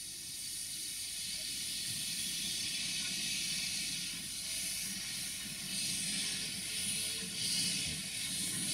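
Small narrow-gauge steam locomotive hissing steam from its open cylinder drain cocks, with a low rumble beneath. The hiss grows stronger and comes in surges from about six seconds in.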